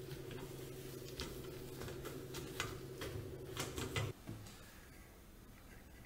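Dishcloth rubbing and wiping across a glass gas cooktop, a few scrubbing swishes that are strongest near the four-second mark, over a steady low hum that stops just after that.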